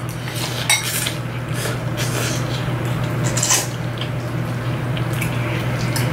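Metal forks clinking and scraping against ceramic bowls in short, irregular clicks as two people eat instant ramen, with noodles being slurped. A steady low hum runs underneath.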